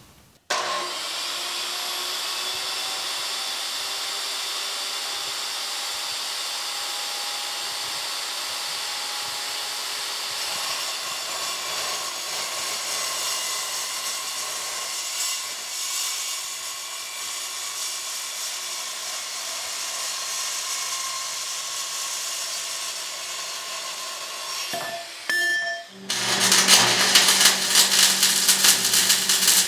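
Handheld metal-cutting circular saw running and cutting steel square tube: a steady whine and grinding. About 26 s in it gives way to the louder, sputtering crackle of stick welding.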